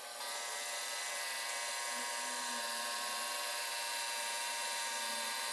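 A small electric motor driving LEGO pneumatic pump cylinders, running with a steady whir made of many steady tones as it pumps up pressure.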